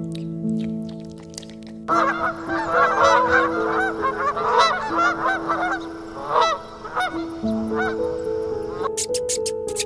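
White domestic goose honking repeatedly, many quick overlapping honks from about two seconds in until about seven seconds, with a few more spaced out after. Soft piano music plays underneath.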